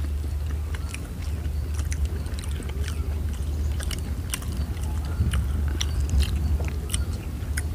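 Several people biting and chewing egg kulfi, a spiced egg dish cooked on sticks, with many small irregular mouth clicks and smacks, over a steady low rumble.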